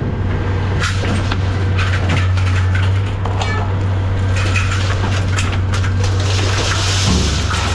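A heavy machine engine running with a steady low drone while scrap metal clanks and crunches in a string of sharp knocks. The engine note shifts about seven seconds in.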